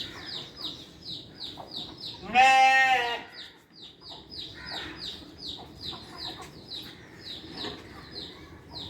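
A goat bleats once, loud and wavering, for about a second, starting about two seconds in, over small birds chirping rapidly and steadily.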